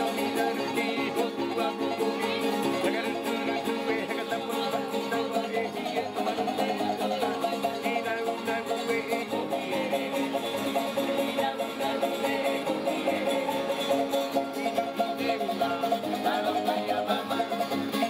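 Traditional Tahitian music played live on a strummed acoustic guitar in a quick, steady rhythm, with singing over it.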